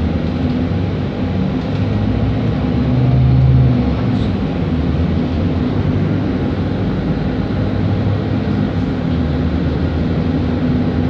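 Volvo B7RLE bus's six-cylinder diesel engine running under way, with tyre and road noise, heard from inside the passenger cabin. A steady low drone that swells louder for a moment about three seconds in.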